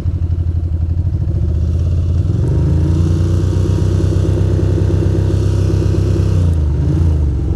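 Ducati Monster's V-twin engine running at a standstill. The engine note steps up about two seconds in, holds for a few seconds, then drops back near the end, as the rider keeps it revving at the red light. The bike runs badly in the wet, which the rider puts down to water getting at an uncovered ignition coil.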